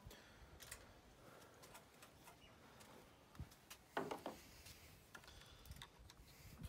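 Faint scattered clicks and knocks from hands working at a scooter handlebar's rubber throttle grip to loosen it, with one louder knock about four seconds in.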